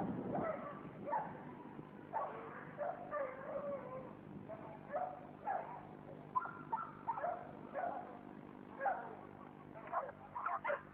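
Several American Pit Bull Terriers barking and yapping across a chained dog yard, with short, irregular barks overlapping throughout.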